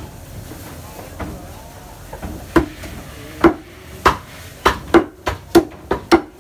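Heavy meat cleaver chopping through a whole goat carcass on a thick round wooden chopping block. A few faint knocks, then about seven loud, sharp chops from about two and a half seconds in, coming faster toward the end.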